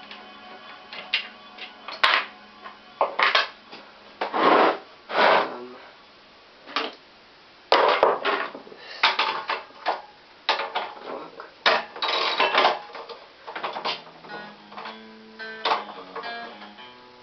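Background music with guitar, under repeated short clattering and rattling of hand tools and metal parts being handled and rummaged through.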